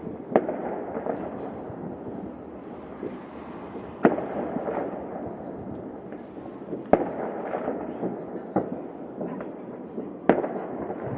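Fireworks display: a loud bang about every two to three seconds as shells burst, five in all, with smaller pops and steady crackling between them.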